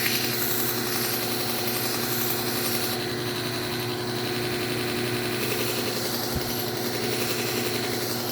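Belt knife sharpener's motor running steadily with the abrasive belt turning as a kitchen knife edge gets another few passes, because the edge still cut a little grabby. There is a brief low thump about six seconds in.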